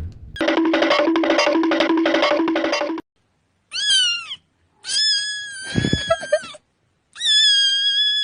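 A short looping bit of music with a repeated steady note for about three seconds, then three high-pitched cat meows: a short one that rises and falls, followed by two long drawn-out ones.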